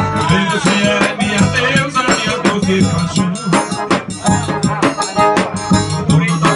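Live band music led by a piano accordion, over a drum and rattling percussion, with a man's voice singing through a microphone in places.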